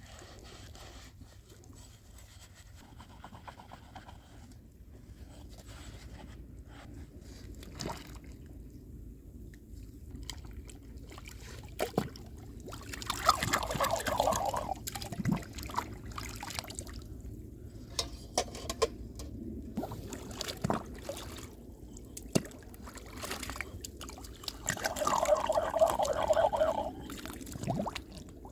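Liquid pouring or trickling in two short bursts of about two seconds each, one midway and one near the end, among scattered light clicks and knocks.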